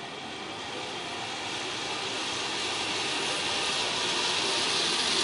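Zip-line trolley pulleys running along the steel cable: a steady whirring hiss that grows slowly louder.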